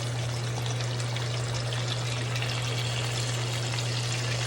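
Tacos deep-frying in hot oil: a steady sizzle with fine crackling, over a steady low hum.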